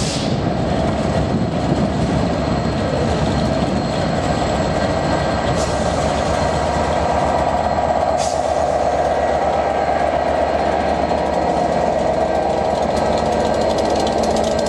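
Class 67 diesel-electric locomotive's EMD two-stroke V12 engine running as the locomotive rolls past close by, a steady, unbroken drone. Two brief sharp ticks come through about halfway through.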